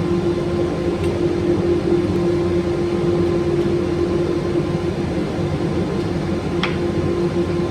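Makita electric belt sander running steadily as it sands wood, a constant motor hum with a strong even tone. A brief click sounds about six and a half seconds in.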